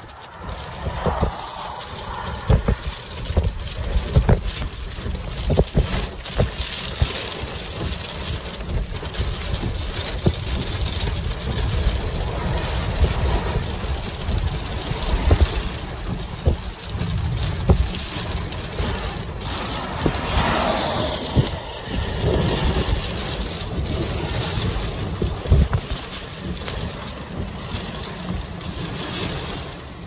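Strong thunderstorm winds gusting against a stopped car, in repeated buffets with a heavy low rumble of wind on the microphone and rain blowing across the car.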